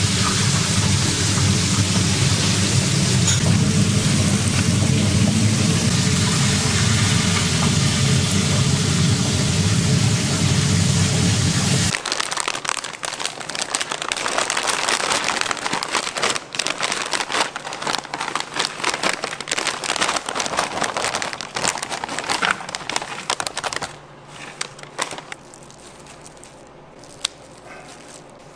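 Restaurant kitchen cooking: a steady loud roar with a low hum for about twelve seconds, then a sudden cut to food sizzling with many small crackles and pops, which turns much quieter near the end.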